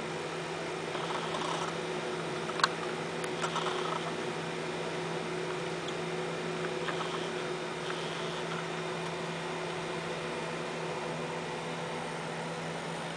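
Steady hum of a hand-feeding brooder's fan, with a low tone and a few higher tones, and one sharp click about two and a half seconds in.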